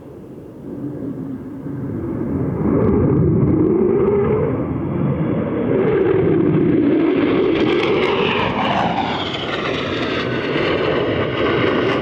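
Low-flying military aircraft passing close by. The engine sound swells over the first few seconds and stays loud, and the pitch of its tones falls as it goes past.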